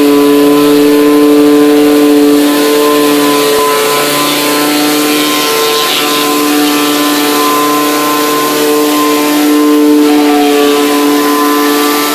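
Pressure washer running steadily while a rotary surface cleaner sprays water onto wooden deck boards: a loud, steady machine hum under a broad hiss of spray.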